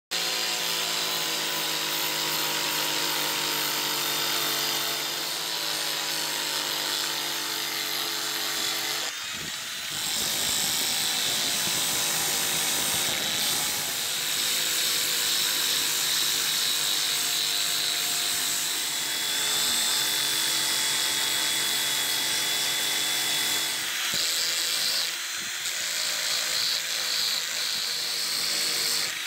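Angle grinder with an abrasive disc sanding and shaping a wooden handle block: a steady high motor whine with grinding hiss, its pitch shifting a little as the disc is pressed into the wood, easing briefly about nine seconds in and again near the end.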